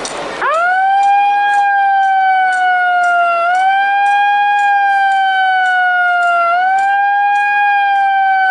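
Siren wailing. It starts sharply about half a second in, and each cycle rises quickly, then sinks slowly for about three seconds before rising again.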